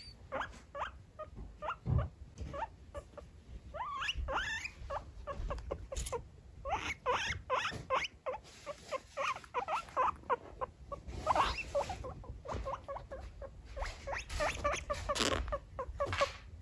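Guinea pig squeaking over and over: a steady run of short squeaks, with a few longer rising squeals now and then.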